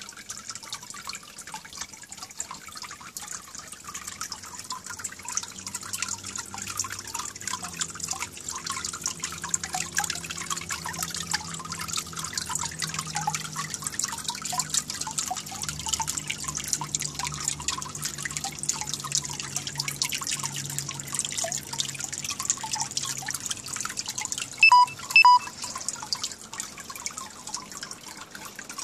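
Water trickling and dripping into a small garden pond, a dense steady patter of drips and small splashes over a low hum. Near the end, two short loud beeps close together.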